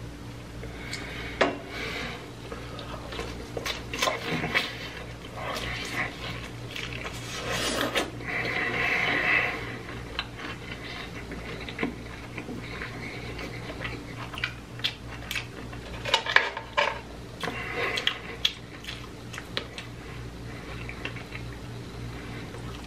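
Close-miked eating at a table: food being handled and chewed, with scattered clinks and scrapes of tableware, over a steady low hum.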